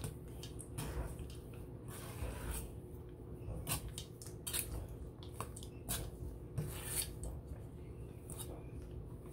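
Stiff cookie dough with chocolate chips being mixed in a stainless steel bowl: irregular clicks and scrapes of a spoon against the metal, with soft squishing of the dough.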